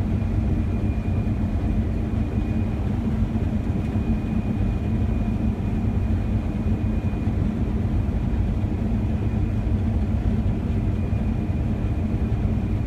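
Combine harvester running in the field: a steady, unbroken low drone with a faint high whine over it.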